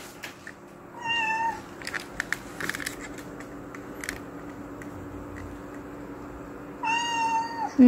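Scottish Fold cat meowing twice: a short high meow about a second in and another near the end, each dropping in pitch as it finishes. A few light knocks and clicks in the first few seconds, over a faint steady hum.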